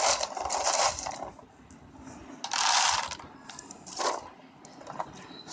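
Dry dog kibble poured from a plastic tub into a dish, the pellets rattling as they land. It comes in three pours: one through the first second, another about two and a half seconds in, and a short one at about four seconds.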